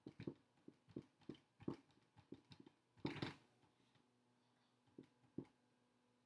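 Dry-erase marker writing on a whiteboard: faint taps and short scratchy strokes, with one longer stroke about three seconds in.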